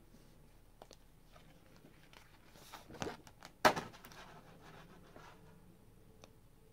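A stiff paper calendar page being flipped over by hand: rustling from about two and a half seconds in, a sharp slap of the sheet at about three and a half seconds, then softer rustling as it settles.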